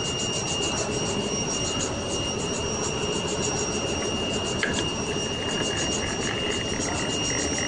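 Workshop machinery running steadily, a constant mechanical noise with a steady high-pitched whine, and a faint click about halfway through.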